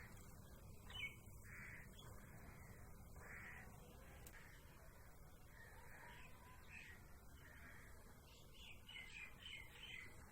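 Faint bird calls, short caws repeated about once a second over a low steady background hum, bunching together near the end.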